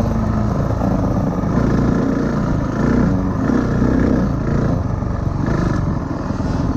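Dirt bike engine heard from on the bike while riding a motocross track, its revs rising and falling again and again with the throttle.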